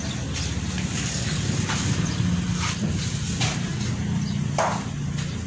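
Steady low engine rumble, with a few short clicks and knocks through it.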